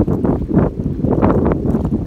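Strong wind buffeting a phone microphone on a moving boat: a loud, ragged rumble that comes up suddenly at the start.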